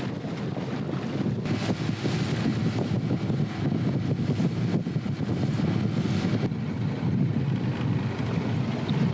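Small open skiff's outboard motor running steadily at speed over choppy water, with wind buffeting the microphone.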